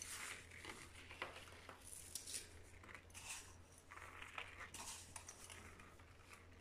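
Faint, soft rustling and pattering of sugared breadcrumbs being sprinkled by hand onto thin strudel dough, in short handfuls about once a second, over a low steady hum.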